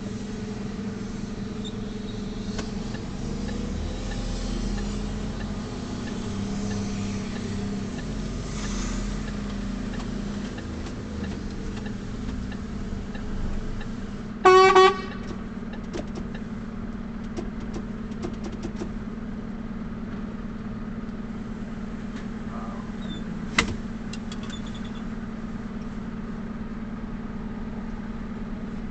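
Truck engine running steadily, heard from inside the cab. About halfway through, a vehicle horn gives one short toot. A sharp click comes some seconds later.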